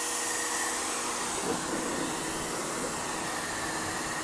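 Lutian LT501-1800A electric pressure washer running steadily: the pump motor's hum under the hiss of the water jet striking brick and blasting off old paint.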